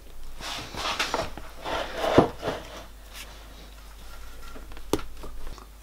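Hands pressing a dolly down onto a thin metal ball-race side plate seated in an aluminium jig, to flatten the slightly concave plate: rubbing and scuffing for the first couple of seconds, a sharp click about two seconds in, and another click near the end.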